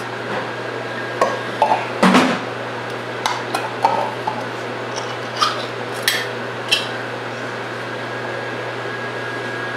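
A metal spoon clinks and scrapes against a bowl and plate as food is spooned out: about ten short, irregular clinks, the loudest about two seconds in, then it goes still over a steady low hum.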